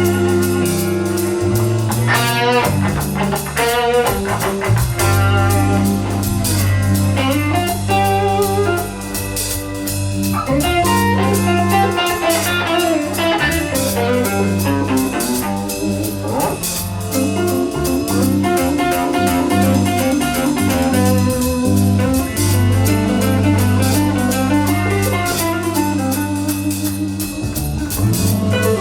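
Live band playing an instrumental passage of a rock song, with guitar to the fore over bass and drum kit.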